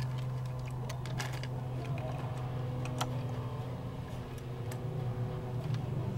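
Light, irregular clicks and taps of plastic Lego pieces being handled, over a steady low hum.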